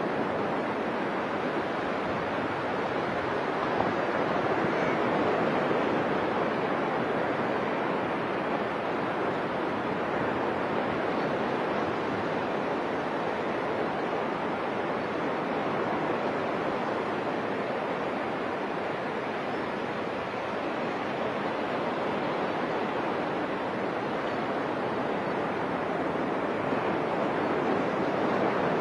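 Ocean surf breaking and washing up a beach: a steady rush of water noise that swells gently now and then.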